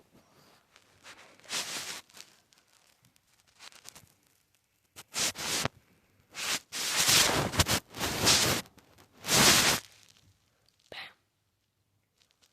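A person making breathy noise bursts from the throat, the coughing-type sounds the video is made of. There is a short burst about a second and a half in, then a cluster from about five to ten seconds in, the longest lasting about two seconds.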